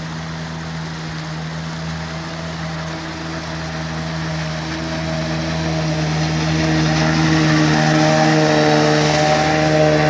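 Yamaha outboard motor on an inflatable boat running steadily, growing louder as the boat approaches through shallow water, over the rush of the river.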